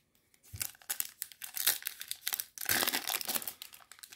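Foil wrapper of a 2021 Topps Chrome Platinum Anniversary trading-card pack crinkling and tearing as it is opened by hand, in irregular bursts of crackle that are loudest in the second half.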